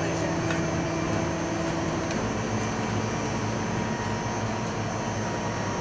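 Commercial ice cream batch freezer running with a steady mechanical hum while it dispenses freshly churned ice cream. The tone of the hum changes about two seconds in.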